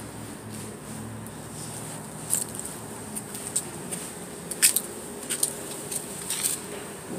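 Steady low hum inside a car at the car wash, broken by a few short scraping clicks of a phone being handled, the loudest just past the middle.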